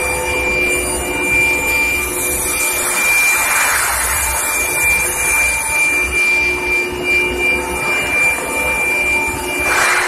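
Carbon steel induction hardening and quenching line running: a steady, loud machine noise from the induction heaters and roller conveyor, with a steady high whine and several lower hums held throughout.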